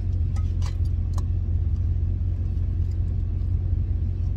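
Steady low drone of a vehicle driving, heard from inside the cabin, with a few faint clicks in the first second or so.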